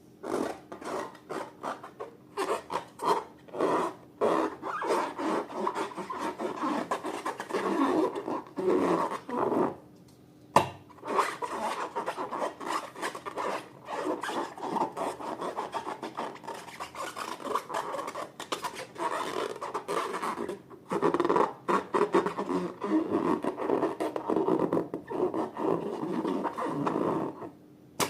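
Slime being mixed and worked by hand: continuous dense, sticky crackling and rubbing, broken by a couple of brief pauses, with one sharp click just after the first pause.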